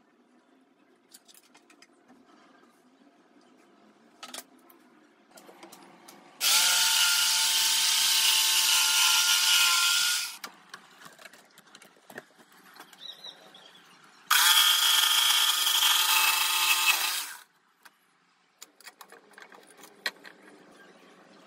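Electric jigsaw cutting a teak board, running in two spells of about four and three seconds, a steady motor whine over the rasp of the blade. Light clicks and knocks of handling come between and after the cuts.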